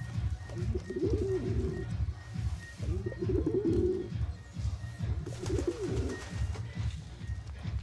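Domestic pigeons cooing: three low coos of about a second each, over a rapid low pulsing in the background.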